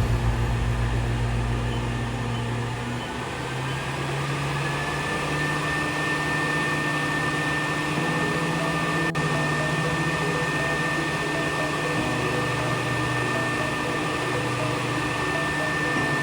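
Dental vacuum cleaner's suction motor running: a whine rises for a couple of seconds as it spins up, then holds steady over a low hum.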